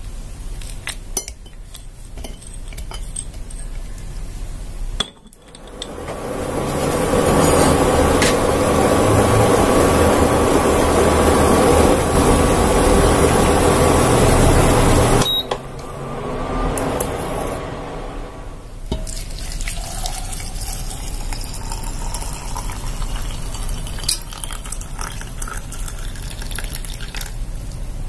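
Light clinks of a ceramic bowl against a glass teapot. Then water at a rolling boil in a steel pot for about ten seconds, cutting off suddenly. Then hot water poured into the glass teapot, its pitch rising as it fills.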